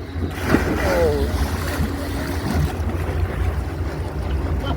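Wind buffeting the microphone on an open boat, with a rushing hiss of wind and water that is strongest in the first half, and a short vocal cry about half a second in.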